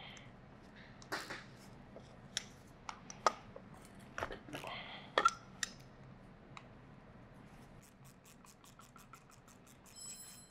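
Faint clicks and knocks of metal hand tools on a JRZ coilover shock as its swivel end is worked loose. Near the end comes a quick, even run of clicks, about four a second.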